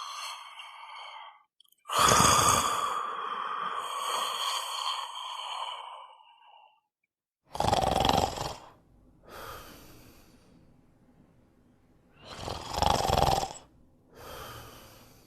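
A person snoring. A long drawn-out breath comes about two seconds in, then after a brief pause two loud snores on the in-breath, each followed by a softer out-breath.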